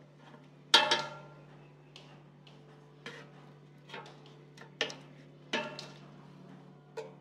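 Wooden chopsticks knocking against a nonstick air fryer basket while moving pork steaks around in it. There is one loud, ringing knock about a second in, then several lighter knocks spread through the rest. A steady low hum runs underneath.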